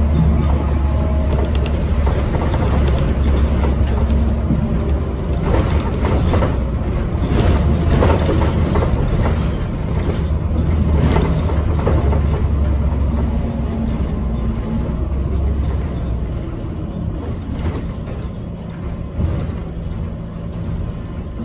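On-board sound of a NABI Metro 45C CNG transit bus under way: a steady low drone from its Cummins Westport L9N engine and drivetrain, mixed with road noise. Knocks and rattles come through the middle stretch, and the sound grows quieter near the end.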